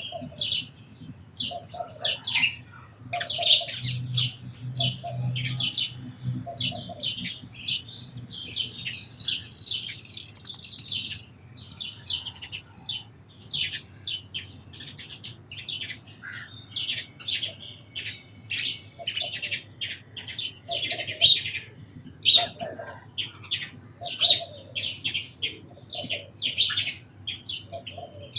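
House sparrows chirping over and over in short notes, with a dense, loud flurry of overlapping chirps about eight seconds in.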